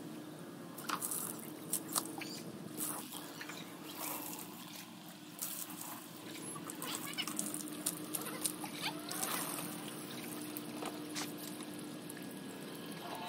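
Water from a garden hose pouring and trickling over a Dalmatian and onto a wet wooden deck as the dog is washed, with scattered short splashes and a faint steady hum underneath.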